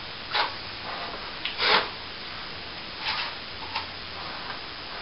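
Plasterer's trowel scraping and spreading wet plaster over a plasterboard ceiling patch while the second coat is worked level: a few short scraping strokes, the loudest near the middle.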